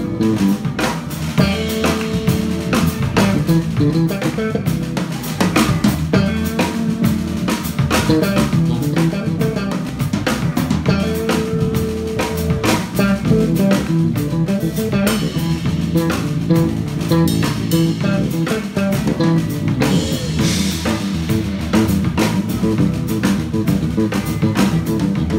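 Live band playing an instrumental number: electric bass and drum kit keeping a steady beat.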